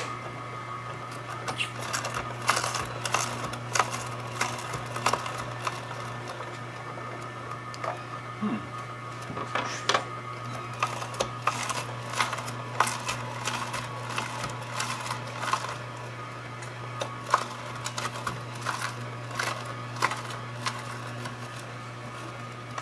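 Omega 8004 auger juicer running, its motor humming steadily while carrots are pushed down the feed tube and crushed by the auger, with irregular cracking and snapping throughout.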